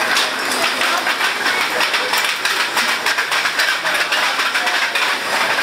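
Busy commercial kitchen din: a steady loud rush of noise with frequent sharp clatter of metal sheet pans and trays.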